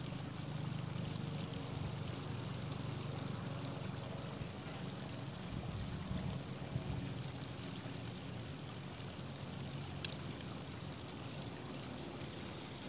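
Faint steady outdoor background noise with a low hum, and a faint click about ten seconds in.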